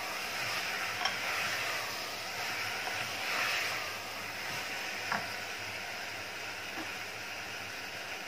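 Wooden spoon stirring chunks of eggplant, potato and dried shrimp as they sizzle in an open pressure cooker, with a short knock of the spoon against the pot about a second in and another about five seconds in.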